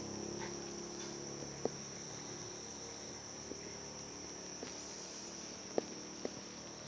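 Steady high-pitched chirring of crickets in the background, with a few short, faint clicks; no snore stands out.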